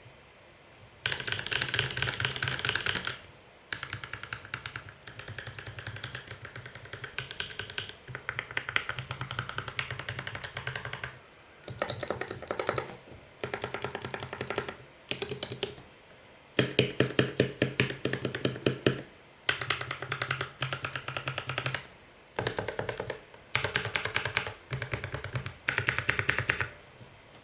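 Typing on a Vortex Series VX5 mechanical keyboard fitted with lubed linear yellow switches (Gateron yellow stems in Outemu housings) on an aluminium plate in a plastic case, with clipped, lubed stabilisers. Fast keystrokes come in bursts of a few seconds with brief pauses between them.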